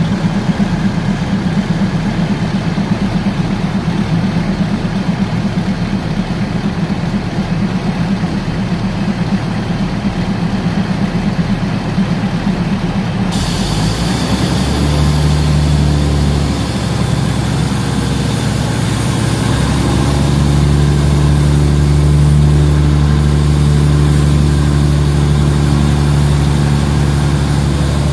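Diesel engine of a passenger train running steadily, heard from on board. About halfway through its note changes into a steadier hum that grows a little louder.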